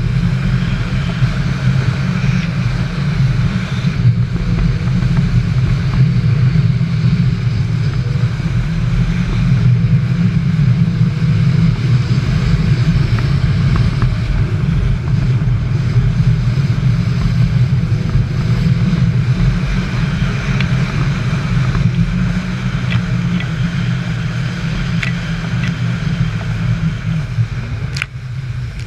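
Jet ski engine running steadily under way.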